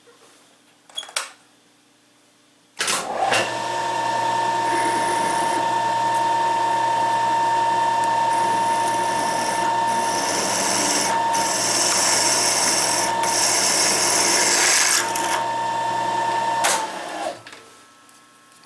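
Milling machine spindle starting up about three seconds in and running steadily with a constant whine while drilling a hole in a hinge piece, with a hiss of cutting over most of the run, then shutting off near the end.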